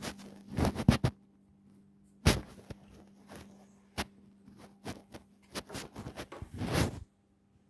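Handling noise from a handheld phone being moved about: several sharp knocks and thumps, clustered about a second in, a loud one just after two seconds and another at four, then a longer rustle near the end.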